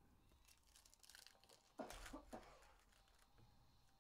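Faint crinkling and rustling of foil trading-card pack wrappers and cards being handled, with a brief louder rustle about two seconds in.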